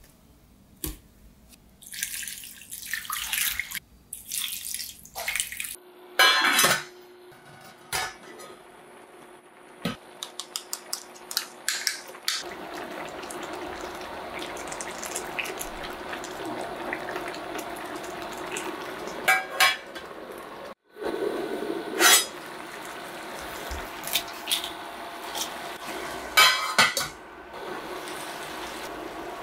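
Water poured into a stainless steel pot, then a sharp clank of metal on the pot. The pot then boils steadily, with occasional clinks of a lid and a spoon against it.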